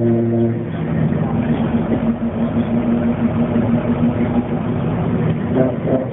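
1998 Dennis Dart bus running, with the odd droning tone it is making. The drone cuts out about half a second in, leaving a rougher engine sound, and comes back near the end.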